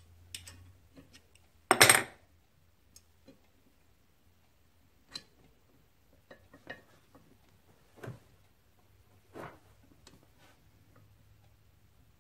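Scattered metallic clinks and knocks from fitting a cast-iron engine flywheel on its crankshaft hub, with one loud clatter about two seconds in.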